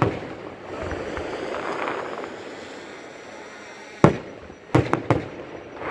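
Aerial fireworks bursting: the rumble of a burst fades at the start, then one loud sharp bang about four seconds in, followed by three quicker bangs close together about a second later.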